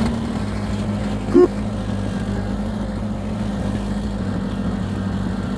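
Kubota BX compact tractor's small three-cylinder diesel engine running steadily, with a short rising squeak about a second and a half in.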